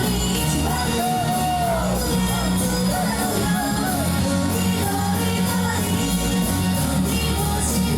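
Live pop music in a concert hall: a backing track with a steady beat and a sung melody, with shouts over it.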